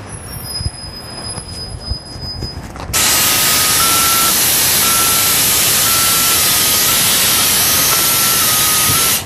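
Inside a 2011 NABI 40-SFW transit bus: quieter running with a few low thumps, then about three seconds in a loud, steady rushing hiss with a faint whistle cuts in and stops suddenly near the end.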